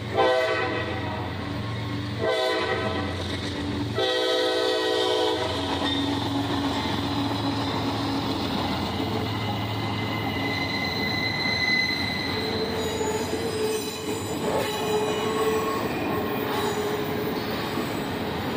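CSX intermodal freight train's locomotive horn sounds in long blasts over the first five seconds or so. Then the locomotive and double-stack container cars roll past the crossing with a steady rumble and thin, high steel-wheel squeals.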